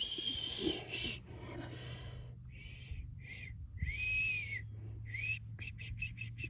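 A person whistling softly and breathily in short notes, some rising and some arching up and down, with a quick run of short whistles near the end.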